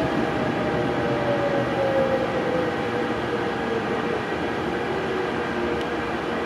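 Inside an RER line A MI09 commuter train car as it runs into an underground station: steady rolling rumble with the electric traction motors' whine falling slowly in pitch as the train brakes.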